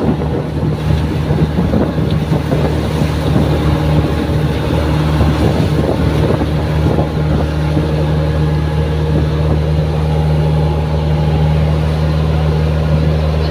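Outrigger boat's inboard engine running at a steady cruising drone while under way, with wind buffeting the microphone.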